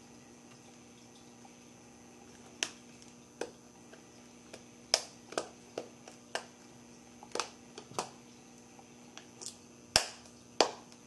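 Sharp, irregular clicks and snaps of an iPhone 5 replacement screen assembly being pressed into its frame around the edges, a tight fit. About fifteen clicks at uneven intervals, the loudest about halfway through and twice near the end.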